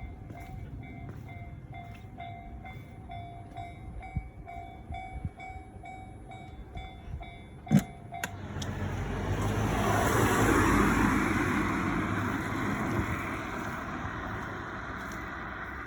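Railway level-crossing alarm ringing in a steady electronic pulse about twice a second, which stops about halfway through just after a sharp click. A vehicle then passes, its noise swelling and fading over a few seconds.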